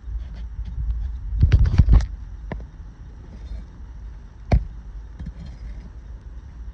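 Nails being pried out of roof shingles: a quick cluster of sharp knocks about one and a half to two seconds in, a single knock shortly after, and one sharp strike about four and a half seconds in, over a low rumble of wind on the microphone.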